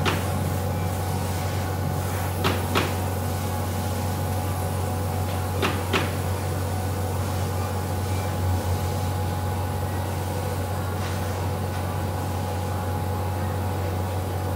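Dual-head fabric laser cutting machine running as it cuts fringe into swimsuit fabric: a steady low hum, with a few sharp clicks. The clicks come in two close pairs, about two and a half seconds in and again near six seconds.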